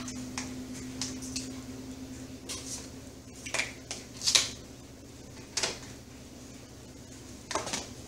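Dishes and utensils clinking and knocking in a kitchen: a handful of short clatters, the loudest about four seconds in, over a faint steady hum.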